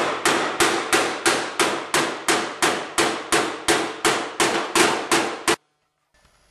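Hammer blows on the sheet-metal fender of an Allis-Chalmers 310 tractor, backed by a hand-held dolly, knocking out a dent. Even, rapid strikes at about three a second, each ringing briefly, stopping abruptly about five and a half seconds in.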